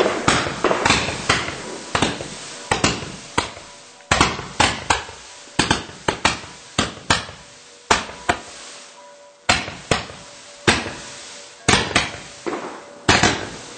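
Pyragric compact multi-shot firework cake firing a rapid, irregular string of sharp bangs, a few a second, with a short lull about nine seconds in.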